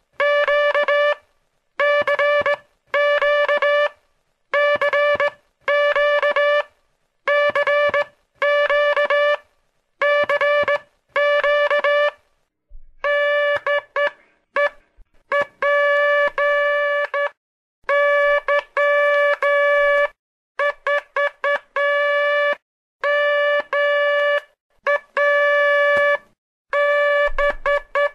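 Morse code (CW) played as a buzzy tone of one steady pitch, keyed on and off. It starts in slow, evenly spaced groups of long tones, then from about halfway becomes a quicker mix of short and long beeps.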